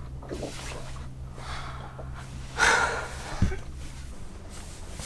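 A person's sharp breath out, about two and a half seconds in, followed by a soft thump. A faint low hum underneath stops about four seconds in.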